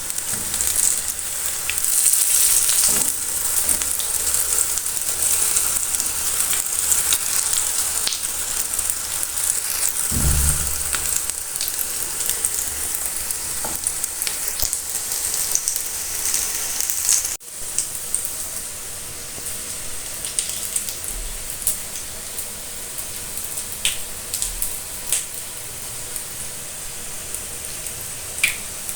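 Potato-and-egg cutlets (katlesi) frying in hot oil: a steady sizzle with scattered crackles and pops. About 17 seconds in the sizzle breaks off for a moment and then goes on a little quieter.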